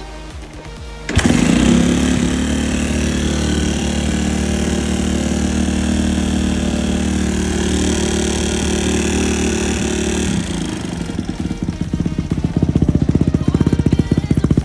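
Dirt bike engine starting up loud and holding high revs, then dropping to a lower, pulsing putter about ten seconds in.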